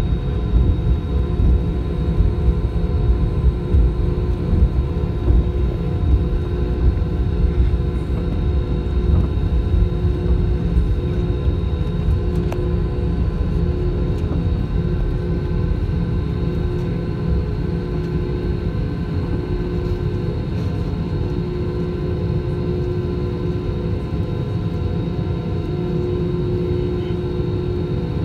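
Airbus A320's twin jet engines running at steady high thrust, heard from a window seat over the wing during the takeoff roll: a steady whine of several tones over a heavy low rumble, the rumble easing slightly in the second half.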